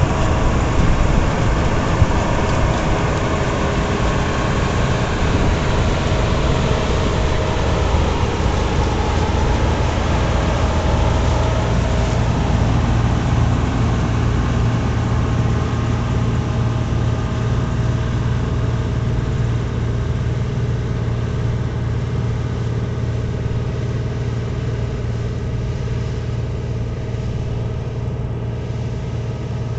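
Bizon Z056 combine harvester working in spring barley: its diesel engine and threshing machinery run steadily while it drives away, the sound slowly fading.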